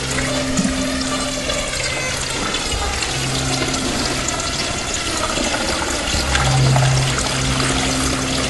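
Soundscape for a stage performance: a dense rushing noise over a low hum that drops out and comes back twice.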